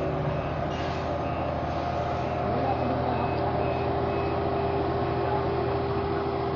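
A heavy road-construction vehicle's diesel engine running steadily, with a reversing alarm beeping at a regular pace above it.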